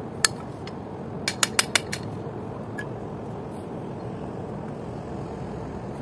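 A single sharp knock, then a quick run of four sharp knocks a little over a second in, over a steady rushing background noise.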